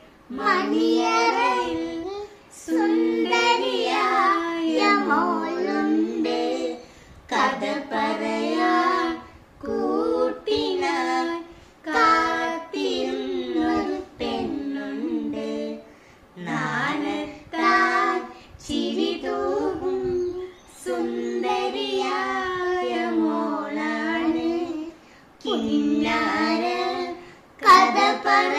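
A child singing a song unaccompanied, in phrases of one to four seconds with short breaths between them.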